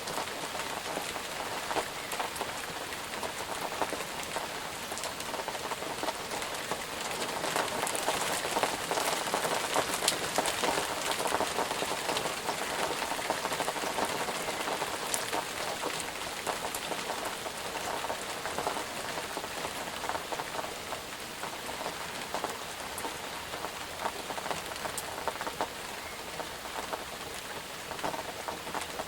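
Steady rain falling on a surface, with a continuous hiss and many distinct drop ticks, slightly heavier for a few seconds in the middle.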